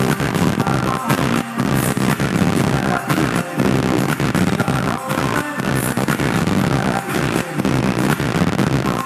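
Loud electronic dance music with a steady beat, played over a sound system for a Zumba workout.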